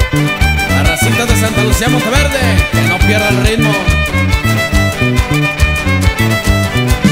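Regional Mexican band music, instrumental passage: a violin carries a wavering melody over a steady, rhythmic bass beat.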